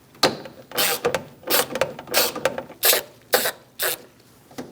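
Ratchet turning a T25 Torx bit to back out a bolt, giving about seven short rasping clicks of the pawl in a steady rhythm, each stroke about two-thirds of a second apart.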